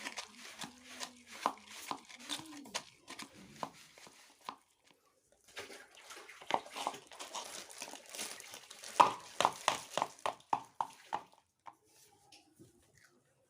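A series of sharp knocks and clicks, ending in a quick run of about four knocks a second near the end before it goes quiet.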